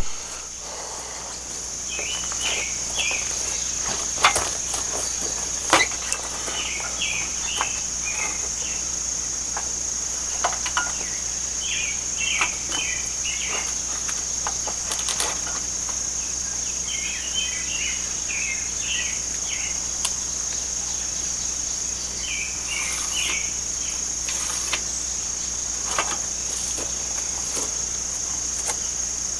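A steady high-pitched chorus of insects, crickets among them. Over it a bird sings short chirping phrases every few seconds, with scattered sharp knocks and clicks.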